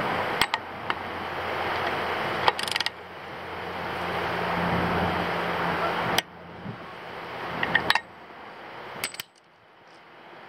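A few sharp, scattered metal clicks and clinks of hand tools on the outboard's propeller nut and cotter pin, over a steady hiss.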